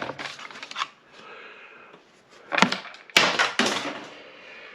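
Metal parts of an air compressor clanking and rattling as a stuck part is worked loose, in several separate clatters, the sharpest near the start and about two and a half and three seconds in.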